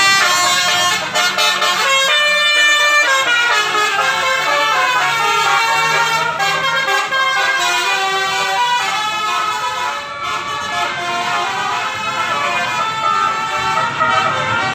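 Telolet basuri multi-tone musical horns playing overlapping melodies, several horns answering one another, with their tones stepping up and down in pitch.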